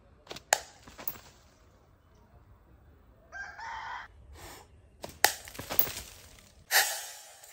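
A slingshot shot snaps about half a second in, and a short yell follows a few seconds later. Near the end come sharp cracks and a loud burst of breaking glass as a beer bottle is hit.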